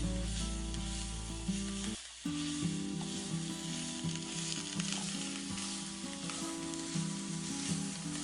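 Onion paste and spices frying in hot oil in a pan, sizzling steadily while being stirred, with light scrapes and ticks, as the spices are fried to cook off their raw smell. Background music plays underneath and cuts out briefly about two seconds in.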